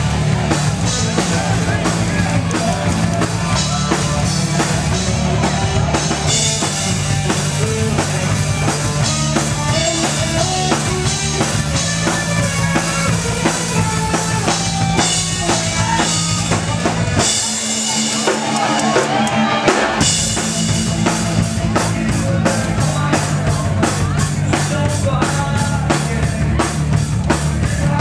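A live rock band playing loud, with electric guitars over a full drum kit. The bass and kick drum drop out for about two seconds midway, then come back in, and the drumming quickens into fast, even strokes near the end.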